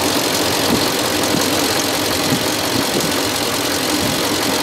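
6.4-litre Hemi gasoline V8 of a 2015 Ram 3500 idling steadily, heard up close in the engine bay. The engine is still warming up, its thermostat not yet open.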